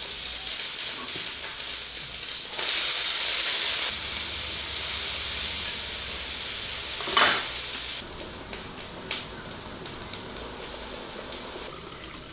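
Chopped onion hitting hot oil in a frying pan, starting to sizzle at once and loudest for a second or so about three seconds in. A sharp knock comes about seven seconds in, then the frying settles to a quieter steady sizzle with scattered crackles.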